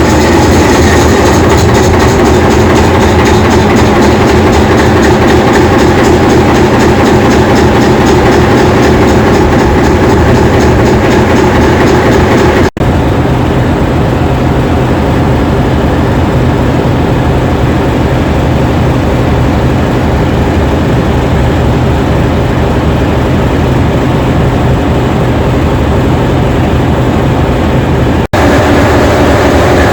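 English Electric diesel engine of New Zealand Railways DG class locomotive 772 running steadily and loudly, a dense low drone with a throaty mechanical rattle. The sound cuts out sharply twice, for an instant, and resumes.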